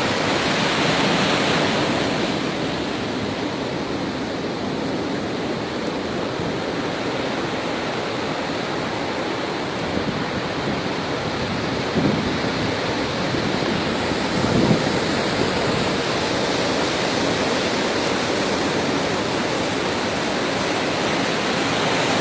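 Steady rushing noise, loud and even, with two short louder swells about halfway through.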